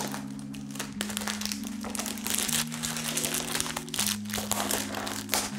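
Crinkling and crunching as a cardboard perfume box is pulled open, many short sharp crackles in a row. Background music of held low chords, changing every second or so, plays underneath.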